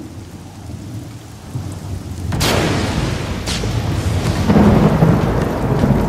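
Thunderstorm: steady rain with thunder building from a low rumble, a sharp crack about two and a half seconds in, a weaker crack a second later, then a loud low rolling rumble.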